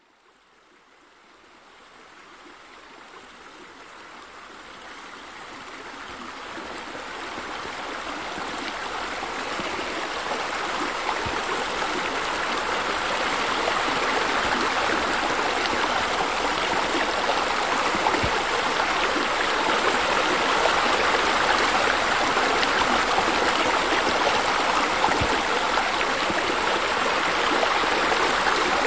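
Steady rush of running water, as from fountain spillways. It fades in slowly from silence over the first dozen seconds or so, then holds level.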